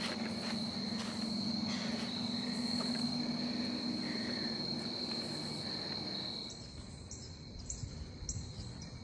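Insects trilling steadily in one high, unbroken tone over a low hum. About six and a half seconds in both cut off together, leaving quieter outdoor ambience with a few faint ticks.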